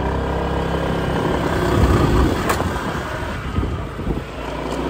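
Small motor scooter's engine running under way, carrying a rider and a passenger, loudest about two seconds in.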